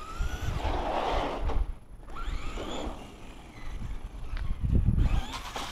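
Radio-controlled car's electric motor whining, rising in pitch several times as it speeds up, over a low rumbling noise.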